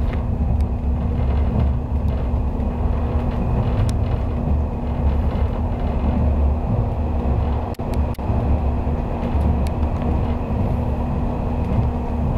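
Cabin noise of a 485 series electric multiple unit running through a station without stopping: a steady low rumble with a constant hum, broken by a few sharp clicks, two of them close together about eight seconds in.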